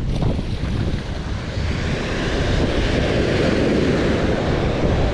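Wind buffeting the microphone over the wash of surf breaking on the beach, a steady noise that swells slightly towards the end.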